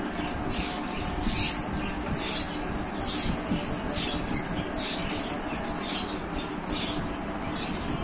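Crayon scratching across paper in short, irregular strokes, roughly one or two a second, while a drawing is coloured and outlined.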